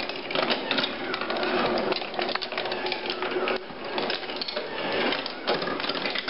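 Wooden marble machine running: many metal marbles rolling and clicking along its wooden tracks and chutes in a dense, continuous clatter.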